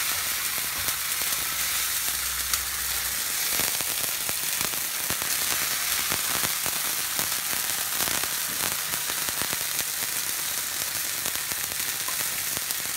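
Onion paste with garlic and ginger frying in olive oil in a wok, sizzling and crackling steadily, while a metal spoon stirs and scrapes it around the pan.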